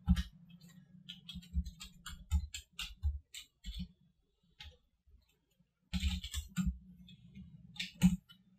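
Computer keyboard typing: a run of quick keystrokes for about four seconds, a pause of about two seconds, then another short burst and a few last keystrokes near the end.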